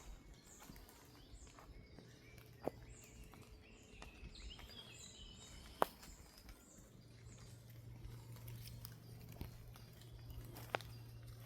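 Footsteps on the forest floor with three sharp clicks, and birds chirping faintly, with a run of high chirps about halfway through.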